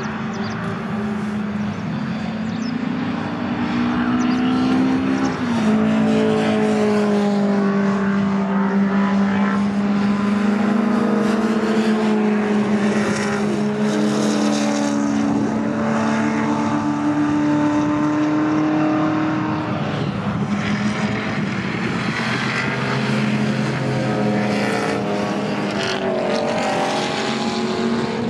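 Historic race cars, among them a Ford Falcon and a Porsche 356, pass at racing speed one after another. Their engine notes overlap and slide up and down in pitch as each goes by.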